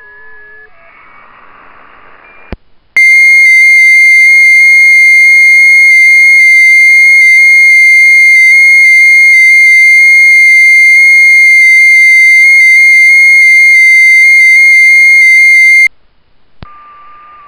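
FT8 transmit audio from WSJT-X: one loud tone near 2 kHz, stepping slightly in pitch, lasting about thirteen seconds. It starts with a click about three seconds in and ends with a click near the end. Before and after it, the receiver gives hiss with faint warbling FT8 signals.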